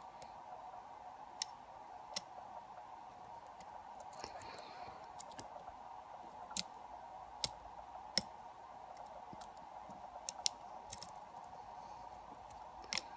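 Lock pick and tension tool working the pins of a pin-tumbler lock. Irregular sharp clicks come as the pins are lifted and set, over a faint steady hum.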